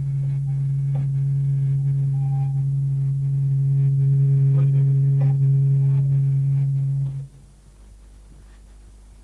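A loud, steady low hum with faint clicks over it, cutting off suddenly about seven seconds in.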